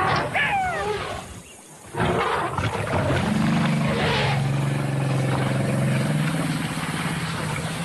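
A shrill animal cry gliding down in pitch in the first second, then the noisy rush of an elephant herd charging through dust. From about three seconds in, a low sustained music drone joins.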